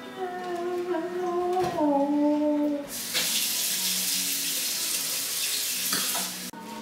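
Kitchen faucet turned on about three seconds in, water running steadily for about three and a half seconds, then shut off abruptly. Before it come a few held pitched tones that slide down.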